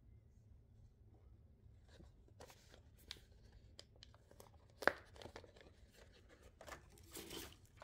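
Paper sticker sheets being handled and flipped: light rustling and crinkling of the sheets, with one sharp crackle about five seconds in and a longer rustle near the end.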